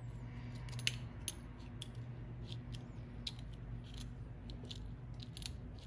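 Faint clicks and light scraping from the lever of a small metal adjustable iris diaphragm, mounted in a plastic flip-up scope cover, being worked by hand through its full range. The clicks are irregular, the sharpest a little under a second in, over a low steady hum.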